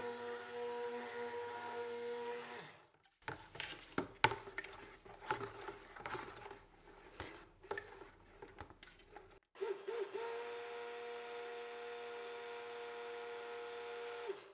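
Hand-held stick blender running with a steady motor hum in a bucket of cold-process soap batter (oils and lye solution) being brought to trace. The hum stops between two and three seconds in. Several seconds of irregular knocks and scrapes follow as the blender head stirs against the plastic bucket. It starts again about ten seconds in and hums steadily until it cuts off at the very end.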